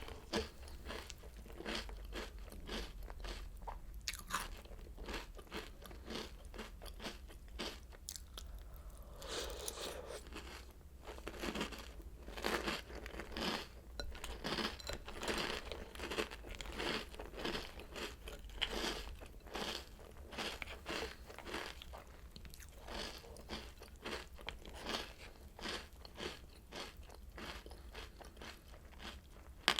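Close-miked chewing of crunchy Oreo O's cereal: a steady run of crisp crunches, several a second, with a short lull about eight seconds in.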